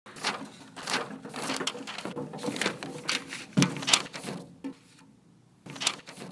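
Sound effects for an animated logo: a rapid string of sharp clicks, taps and swishes over a faint hum, with a heavier thump about three and a half seconds in. After a lull come two more clicks near the end.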